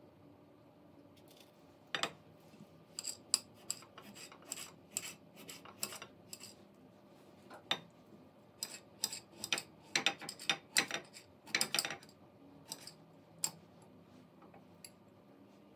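Irregular light clicks and clinks of small hard objects being handled, in a busy cluster from about two seconds in until about twelve seconds in.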